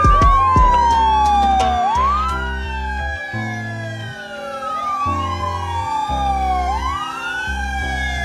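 Several fire truck sirens wailing together, each sweeping slowly down in pitch and then quickly back up, about every two and a half seconds, over background music with a low bass line.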